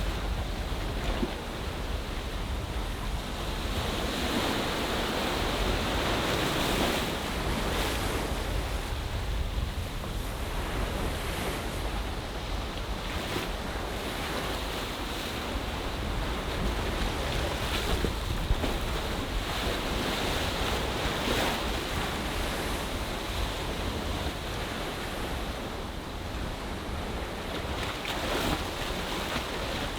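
Ocean surf in a bay: a steady rush of waves washing ashore that swells and eases every few seconds. Low wind rumble buffets the microphone.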